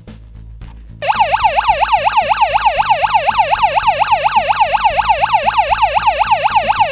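Small battery-operated electronic siren alarm, switched on by an analog alarm clock's alarm switch, going off: it starts abruptly about a second in and runs as a loud, fast warble sweeping up and down about six times a second.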